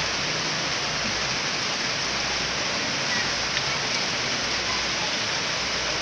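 Heavy rain falling steadily: a dense, even hiss.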